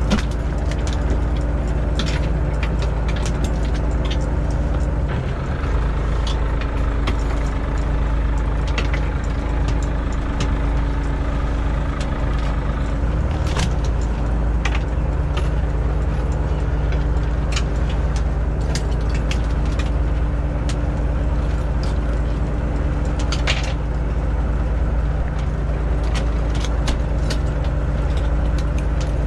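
Boat engine and hydraulic longline hauler running steadily as the line is hauled aboard: a continuous hum with a slight shift in pitch twice, about 5 and 13 seconds in. Scattered sharp clicks and knocks of gear on deck.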